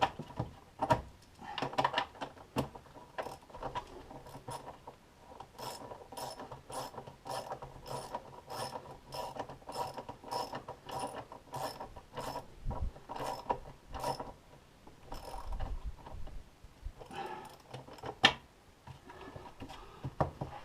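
Ratchet wrench with a 10 mm socket clicking as bolts are run in and tightened: a steady run of clicks at about two or three a second, with scattered knocks and one sharper knock near the end.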